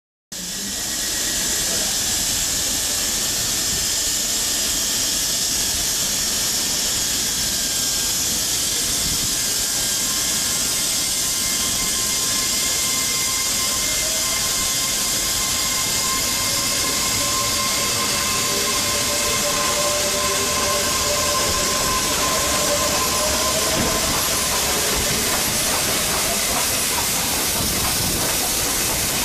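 Peppercorn A1 steam locomotive 60163 Tornado running slowly into the station platform with a steady hiss of steam. Faint thin squeals come and go in the middle stretch.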